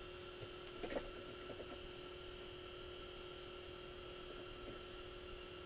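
Steady electrical hum at a low level, with a faint click about a second in and a few soft ticks just after.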